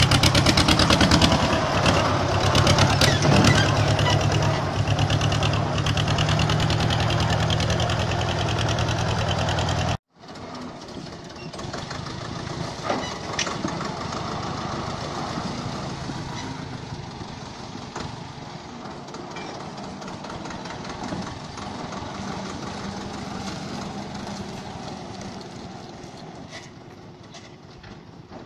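Deutz D3006 tractor's air-cooled three-cylinder diesel engine running close up, loud, with a rapid, even firing beat. About ten seconds in the sound cuts off abruptly and the same tractor is heard again more quietly as it drives, growing fainter near the end.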